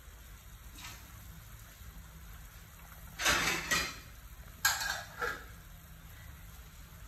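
Pot of soup at a rolling boil, bubbling, with a few louder surges of bubbling about three seconds in and again near five seconds.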